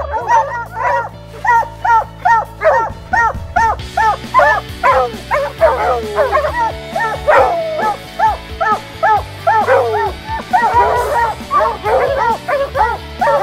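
A pack of hounds barking treed at the base of a tree, several dogs at once in a fast, overlapping chop of two to three barks a second: they have a cat up the tree. Background music plays underneath.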